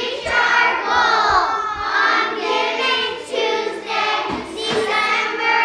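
A class of children singing together in unison, their voices held in long, gliding notes.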